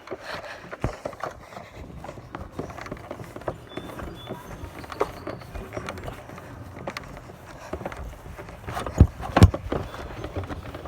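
Handling noise of a heavy window air conditioner being carried on foot: irregular knocks and rattles with footsteps, and two heavy thumps about nine seconds in.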